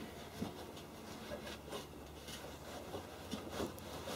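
Rubbing, scraping and light knocks of wheel-arch sound insulation being pushed by hand up into the front wheel arch, in scattered short bursts.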